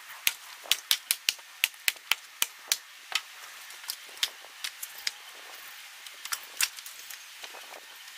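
Birch firewood being split by hand and the split pieces landing on the pile: sharp wooden knocks and clatter, a quick run of about a dozen in the first three seconds, then scattered knocks.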